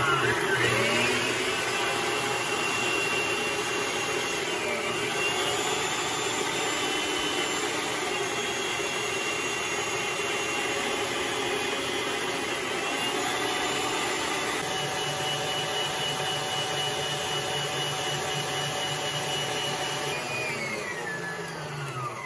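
Electric stand mixer with a wire whisk running fast, whipping egg whites from liquid to stiff foam: a steady motor whine that rises in pitch as it spins up at the start and falls in pitch as it slows near the end.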